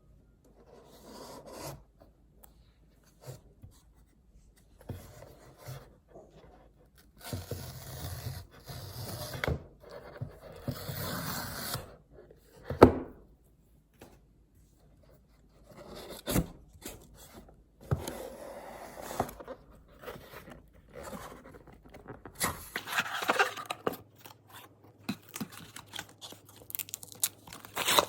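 Hands handling and unwrapping iPad packaging and accessories: intermittent scraping, rubbing and tearing, with one sharp knock about halfway through.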